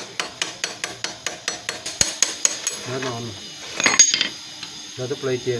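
Hammer tapping on metal at a fast even pace, about five blows a second, while a motorcycle is being taken apart. About four seconds in, a single loud metallic clank rings out.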